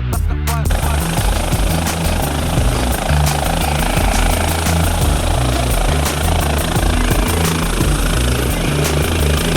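Helicopter running close by: its turbine and rotor make a loud, steady noise with a pulsing low end. It takes over from music about a second in.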